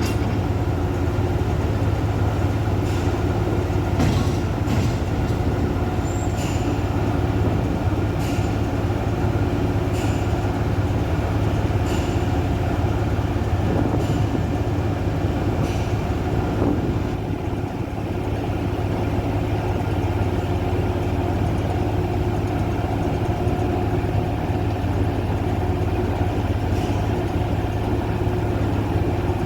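Diesel engine of a Sri Lanka Railways Class S8 diesel multiple unit running steadily, with sharp metallic clicks about every two seconds during the first half.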